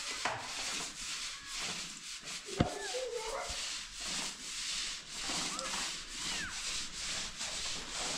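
Paintbrush bristles scrubbing wet white paint onto a plastered wall: a rhythmic hiss that swells and fades with each stroke, about once a second. A single sharp knock about two and a half seconds in.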